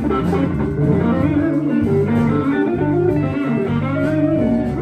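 Blues band playing an instrumental passage between sung lines, with a guitar running through single-note lead fills over the bass.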